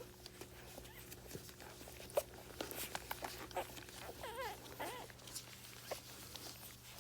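Newborn Soft Coated Wheaten Terrier puppies nursing: many small, soft suckling clicks, and about four seconds in two brief wavering squeaks from a puppy.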